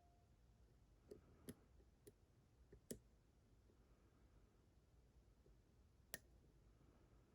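Faint, sparse metallic clicks and taps of a thin lock pick working the pins inside a Vachette HDI lock cylinder during single-pin picking. There are about six clicks, clustered in the first three seconds with one more about six seconds in.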